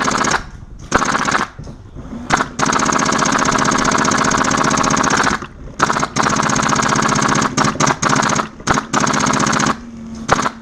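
Custom HPA-powered G&P M249 Para airsoft light machine gun firing full-auto bursts: a couple of short bursts, then one long burst of about three seconds, then several more short bursts.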